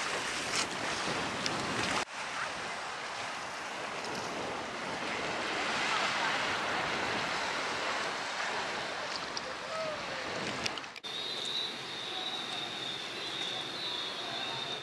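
Sea surf washing against a rocky shoreline, a steady rush that swells and eases. It drops out briefly twice, and after the second break a faint steady high whine sits under the rush.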